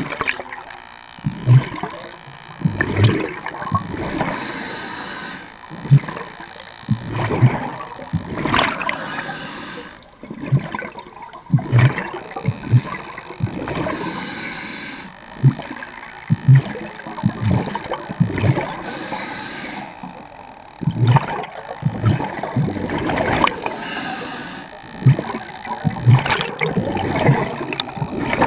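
Scuba regulator breathing underwater: a hissing inhale about every five seconds, each followed by an exhale of gurgling, rumbling bubbles.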